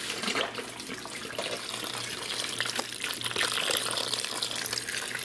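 Beef broth pouring from a carton in a steady stream, splashing into liquid, peppers and butter in a slow cooker.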